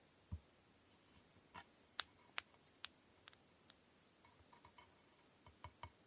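Faint, scattered clicks and taps of small objects being handled while preparing kumihimo braiding threads. There is a soft low thump near the start, a few sharp clicks in the middle, and a cluster of small ticks with two low knocks near the end.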